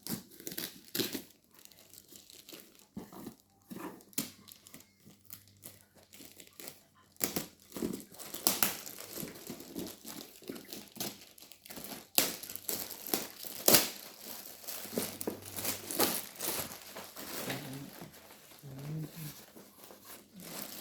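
Packaging of a new pair of futsal shoes being crinkled and torn open: irregular rustling and crackling with a few sharper snaps.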